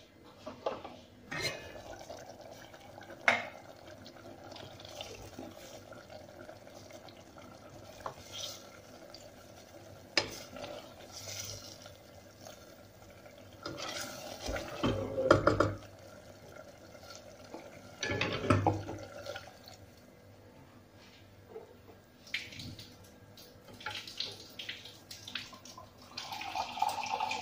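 Kitchen work sounds: utensils clinking and knocking against pots and dishes, with water running in a few short spells, the last one near the end.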